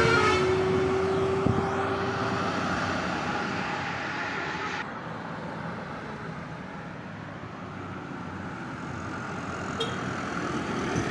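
A heavy truck on the road, its engine and tyre noise fading away over the first several seconds, with traffic noise building again near the end. A multi-tone horn cuts off right at the start.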